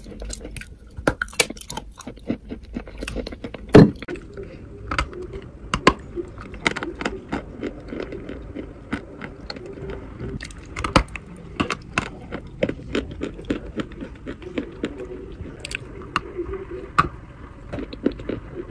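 A person biting and chewing lumps of chalk, with many sharp crunches and cracks over softer chewing. The loudest crunch comes about four seconds in.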